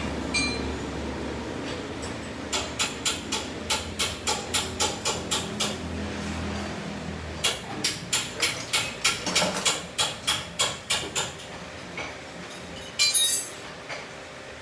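A hammer striking metal in two runs of quick, even blows, about four a second, with one harder blow near the end.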